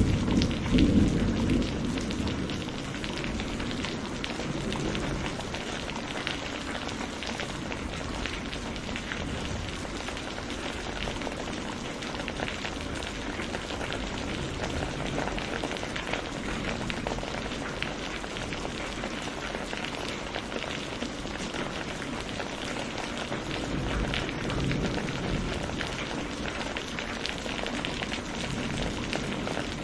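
Steady rain falling, a dense patter of drops. The tail of a thunder rumble dies away in the first couple of seconds.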